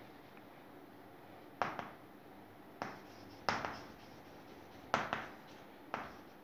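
Chalk writing on a chalkboard: about six sharp taps and short scratches of the chalk, each fading quickly, spaced irregularly.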